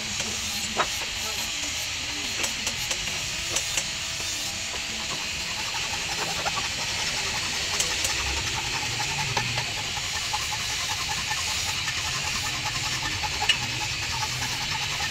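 Steel hand file rasping steadily across the edge of an axe head, metal scraping on metal, with a couple of sharp clicks.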